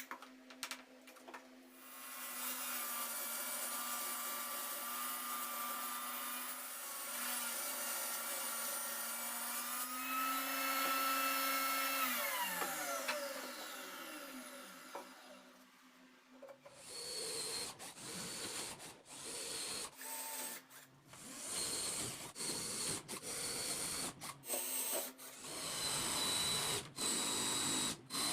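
Power tool motor running steadily, then switched off and winding down with falling pitch; after a short pause a power tool is run in quick repeated bursts, on and off about once a second.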